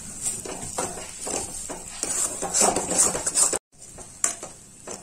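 Metal spatula scraping and knocking against a wok as mashed, spiced potato filling is stirred and pressed, in irregular strokes. The sound cuts out abruptly for a moment about three and a half seconds in, then the scraping goes on more quietly.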